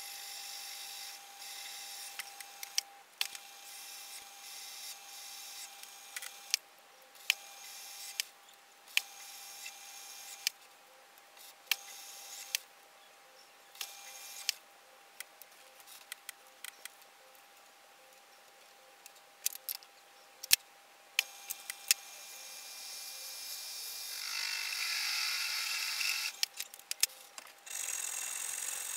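Small metal lathe running with a steady whine while its tool cuts aluminium in stop-and-start passes, with scattered sharp clicks. Near the end a hand hacksaw starts sawing through the metal.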